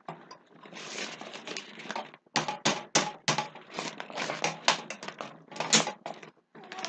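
Rock 'n Play sleeper frame leg being worked into its plastic base socket: a scraping rustle, then a quick run of sharp plastic clicks and knocks as it is pushed and seated.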